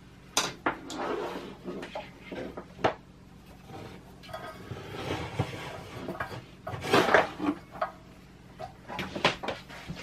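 Irregular clicks, knocks and light clattering of metal and plastic parts as an air compressor pressure switch is handled and fitted back onto its brass fitting. The loudest knocks come in a cluster past the middle and again near the end.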